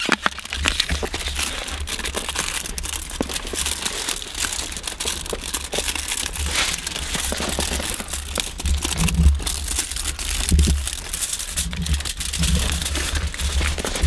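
Continuous crackling and rustling noise over a low rumble, with a few heavier low thumps past the middle.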